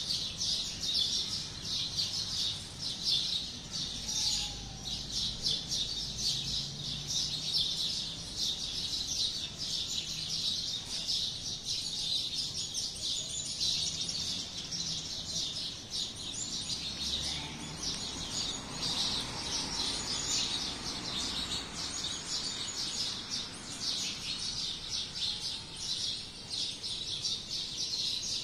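Many small birds chirping in a dense, continuous, high-pitched chorus of rapid chirps.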